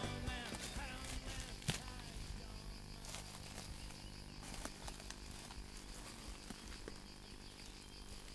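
Quiet summer countryside ambience: faint steady insect chirring, with a few soft clicks. A music track dies away at the start.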